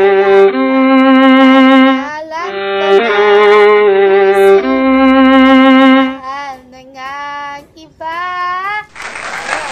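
Music: a song melody in long held notes with a bowed-string-like sound, a phrase of about two seconds played twice, then shorter wavering notes. It breaks off about nine seconds in, where a noisy, different recording takes over.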